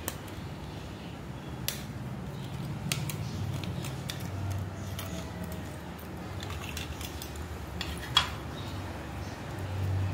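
Sharp handling clicks and light metallic clinks as a metal link watch bracelet is worked out of a plastic watch box, a few separate clicks with the sharpest about eight seconds in. A low steady hum runs underneath.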